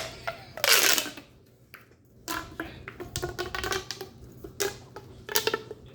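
Plastic pop tubes being stretched and bent in the hands, giving a dense crackling burst near the start and then bursts of rapid ribbed clicking.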